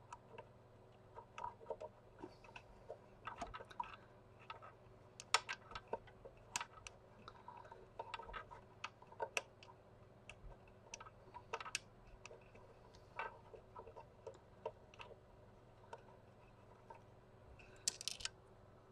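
Faint, irregular small clicks and taps of fingers and a small tool handling plastic parts while a tiny logic board is worked out of its plastic case, with a quick cluster of louder clicks near the end.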